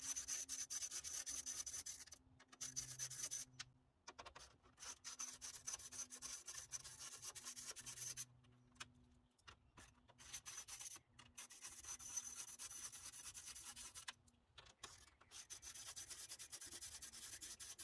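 Hand socket ratchet loosening the 10 mm bolts at the top of a truck grille: repeated spells of fast, rasping ratchet clicks, each a second or two long, with short pauses between them.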